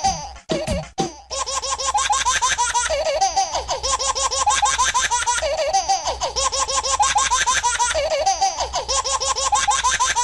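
Music track with rapid, high-pitched laughter running through it, starting about a second in after a brief pause.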